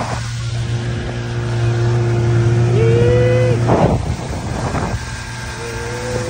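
A small boat's outboard motor running steadily under way, with a constant low hum and a brief higher whine partway through. Water rushes past the hull, and gusts of wind hit the microphone, the strongest about four seconds in.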